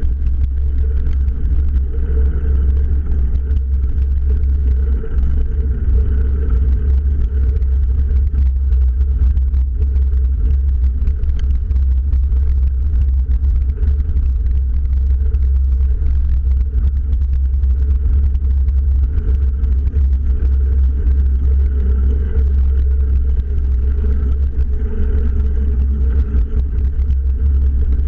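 Steady low rumble of wind buffeting the camera's microphone, mixed with bicycle tyres rolling over a gravel road while coasting downhill.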